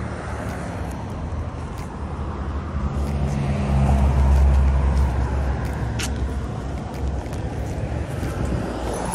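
Road traffic: a motor vehicle's engine hum and tyre noise swelling as it passes close, loudest about four seconds in, then easing back to a steady traffic rumble.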